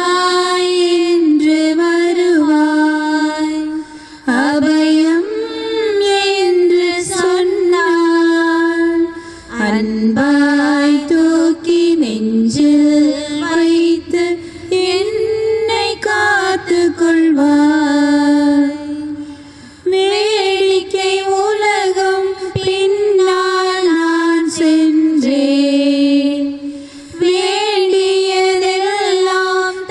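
A woman's voice singing a slow Tamil hymn, holding long notes, with short breaths between phrases.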